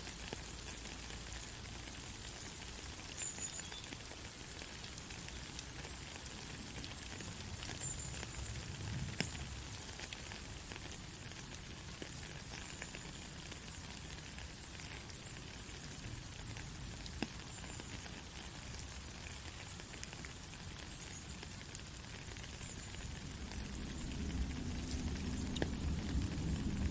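Steady rain falling, a continuous hiss with scattered individual drops ticking. A low rumble builds near the end.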